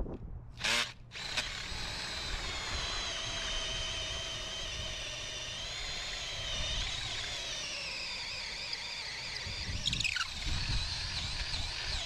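Power drill boring out a hole in stone, running steadily with a high whine from about a second in.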